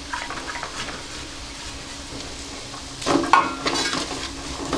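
Diced carrots and onions sizzling in oil in a kadai, with a few light clicks of a wooden spatula against a steel plate as the last carrots are scraped in. About three seconds in, louder stirring strokes of the spatula scraping through the vegetables in the pan begin.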